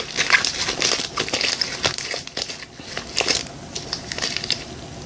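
Clear glue slime being squeezed and stretched by hand: irregular sticky crackling and popping clicks, which die away about four and a half seconds in.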